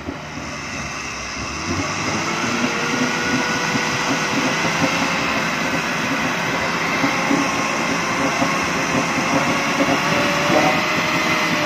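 Suzuki 4x4's engine revving hard and held at high revs, building up over the first two seconds, as its tyres spin in deep mud. The chassis is hung up on the mud, so the wheels slip instead of gripping.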